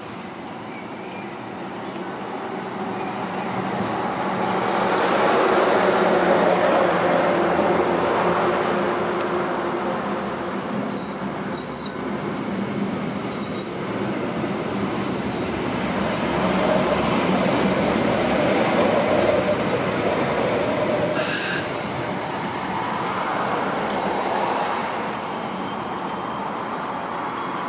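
Phase 4 light rail vehicle pulling away from the platform and passing close by. Its motors and its wheels on the rails swell over the first six seconds and stay loud, with a second rise later on.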